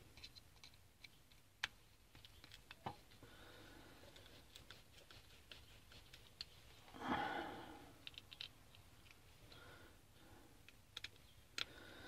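Faint scattered clicks and scrapes of a screwdriver driving small screws into a plastic inline switch housing, with a brief soft rush of noise about seven seconds in.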